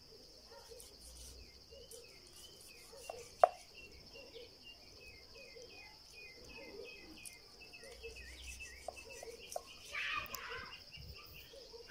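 Steady high buzz of crickets or other insects, with repeated faint chirps over it. A single sharp click stands out about three and a half seconds in, and a brief scraping rustle comes about ten seconds in.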